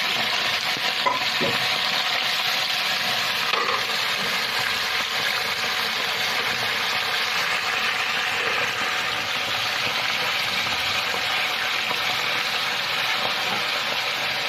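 Raw bone-in chicken pieces sizzling steadily in hot oil in an aluminium pressure-cooker pot, at the start of frying while the meat is still pink. A wooden spatula gives a few light knocks in the first few seconds.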